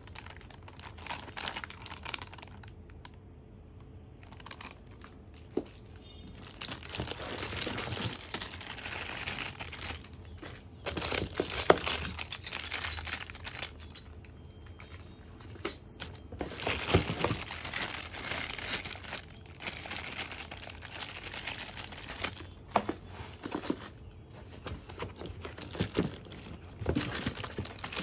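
Plastic packaging bags crinkling and rustling as packed parts are handled and unwrapped, in bursts of a few seconds with a few sharp clicks and knocks among them.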